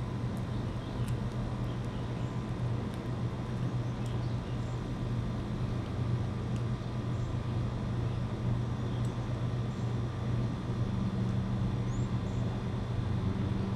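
Steady low background rumble, like distant traffic, with a few faint high ticks and one short high chirp about twelve seconds in.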